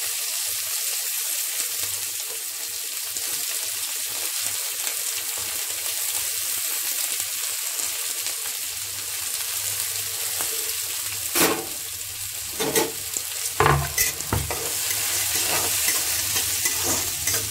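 Sliced onions, green peas and dried red chillies sizzling in hot oil in a kadai, a steady hiss. In the second half a spatula stirs them, with a few sharp knocks and scrapes against the pan.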